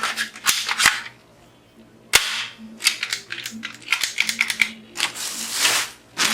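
Sharp clicks and snaps of hard plastic toy-rifle parts being handled, with one loud snap about two seconds in and a stretch of rustling near the end.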